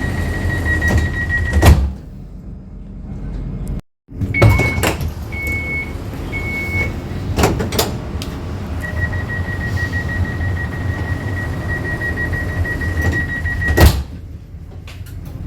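Kaohsiung Light Rail tram doors: a fast, high door warning beep ends in the thud of the sliding doors meeting. Then come three separate beeps and a few knocks, and a long run of the fast warning beeps that ends in another door thud, over the low rumble of the tram.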